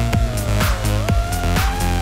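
Electronic dance music with a fast, steady beat and a gliding synth line.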